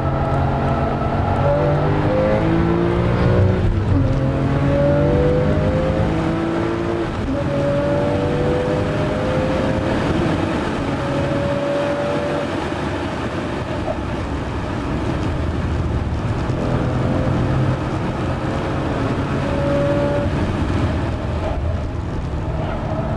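Porsche 997 Carrera S's 3.8-litre flat-six heard from inside the cabin, accelerating hard with rising revs and two upshifts in the first several seconds. It eases off briefly about halfway, then pulls up through the revs again.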